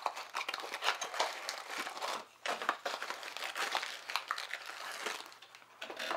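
Small plastic poly bags and cardboard blind-box packaging crinkling and rustling as two mystery pin blind packs are opened by hand, with scattered small clicks.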